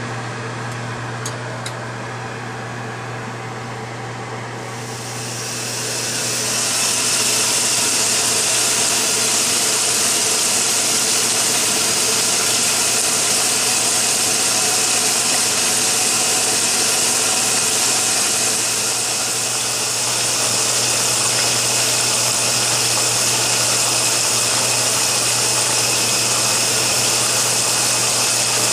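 Top-loading washing machine filling, water rushing into the drum over a steady low hum. The rush grows louder about five seconds in and then holds steady.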